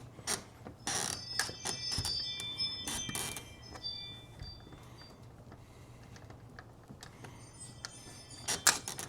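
Small metal hardware clicking and clinking, with several brief metallic rings, as a hex key works the set screws of a patio door handle. The clicks cluster in the first few seconds, go quiet, and come back with a couple more just before the end.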